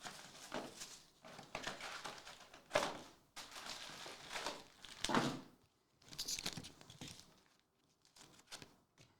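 Trading card packs being torn open and their wrappers crinkled: a run of irregular rustling and crackling that thins out to a few faint ticks near the end.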